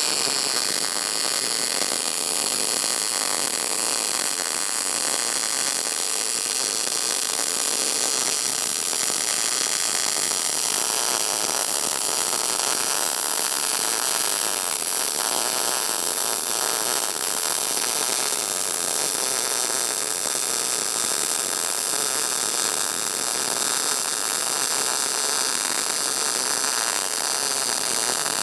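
Lincoln PowerMIG 210 MP MIG welding arc burning steadily on 1/8-inch steel, fed with .025-inch wire at about 330 inches a minute and 18 volts under argon-CO2 (C25) gas, giving a continuous loud crackling hiss.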